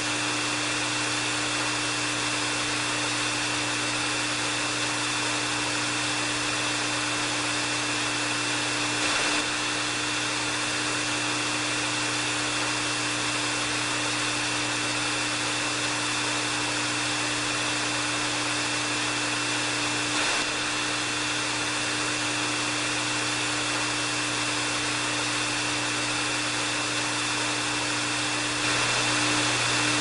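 Hair dryer running steadily: a constant rush of blown air over a low motor hum, with a thin high whine on top.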